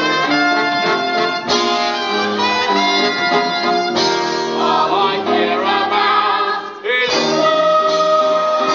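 Live stage band of a theatre musical playing sustained chords. The sound changes abruptly about one and a half, four and seven seconds in.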